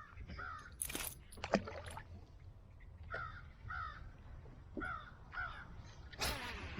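A bird calling in short, downward-bending calls, mostly in pairs. There are sharp knocks about a second in and again half a second later, and a brief rush of noise near the end.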